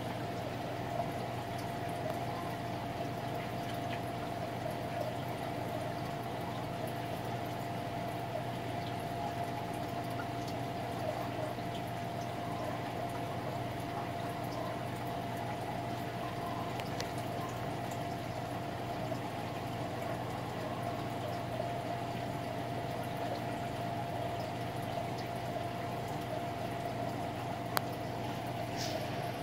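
Aquarium sump running: a steady wash of moving water over a low, even pump hum with a faint steady tone above it. A single sharp click near the end.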